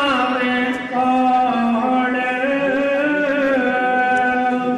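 A voice singing a devotional shabad, drawing out long held notes that step between a few pitches without breaking, with a brief dip in loudness about a second in.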